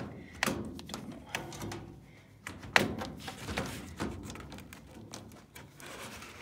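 A run of irregular knocks, taps and light scraping as a furnace filter is worked out of its slot in the sheet-metal ductwork, with one sharper knock about three seconds in.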